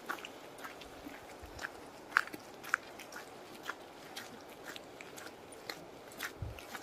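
Footsteps crunching on a gravel and dirt forest trail, faint short crunches about two a second, a couple louder ones about two seconds in.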